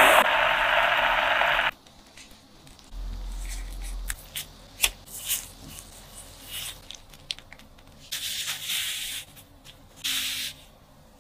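A pot of diced peaches bubbling loudly for the first second and a half. After that come quiet kitchen handling sounds: a wooden rolling pin rubbing over mochi dough, light taps, and plastic gloves rustling in two short bursts near the end as the dough is folded around the filling.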